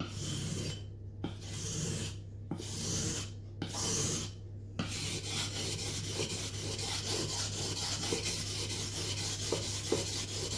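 Knife blade being stroked across a wet whetstone while sharpening a Mora Bushcraft Black: first about four separate slow strokes with short pauses, then from about five seconds in a quick, steady run of short back-and-forth strokes.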